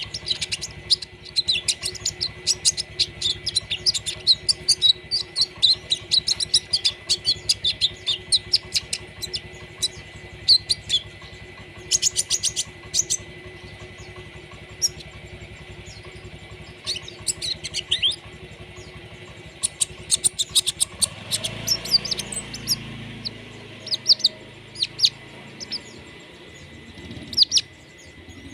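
Songbird singing rapid strings of short, high chirping notes in repeated bursts: the fine staccato 'trotol' song that Indonesian bird keepers train for. A faint steady high whine runs underneath.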